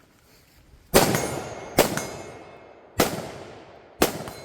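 Four gunshots at a steady pace, each followed by a long echoing decay with a faint metallic ring from steel targets being hit.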